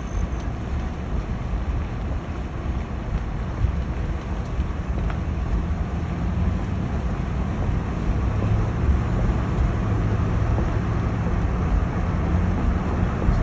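Steady low rumble of a moving car, with road noise and wind buffeting the microphone, growing slightly louder over the last few seconds.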